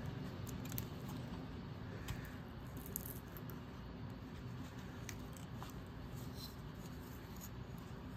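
Wood-carving knife slicing thin shavings from a wooden bird blank: faint scraping cuts with a few sharp clicks scattered through, over a steady low hum.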